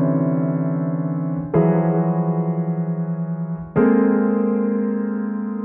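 Three dissonant four-note chromatic cluster chords (tetrachord 4-2, a polychord in seconds) played in turn on a keyboard, their roots a major third apart (T0, T4, T8). The first is already sounding, the second enters about one and a half seconds in and the third just under four seconds in, each held and slowly fading with a fast wobble.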